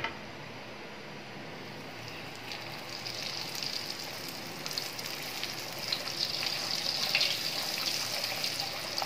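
Hot oil sizzling in a kadhai as a stuffed urad dal kachori deep-fries. The sizzle is faint at first and grows stronger about a third of the way in, with small pops and crackles.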